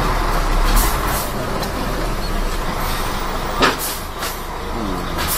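Mercedes-Benz Axor 1840 truck's diesel engine running as the truck creeps forward at low speed, heard from inside the cab, with a sharp knock about three and a half seconds in.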